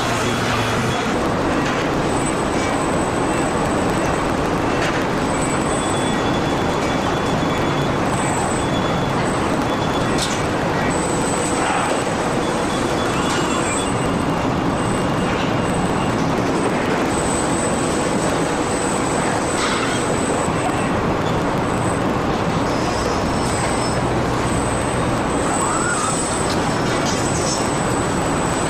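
Steady din of car assembly-line machinery, with a thin high whine that comes and goes and a few short clicks.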